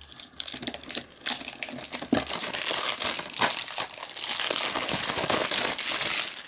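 Cellophane shrink-wrap on a DVD case being torn and peeled off, a continuous crackling and crinkling of thin plastic that grows busier from about two seconds in and stops near the end.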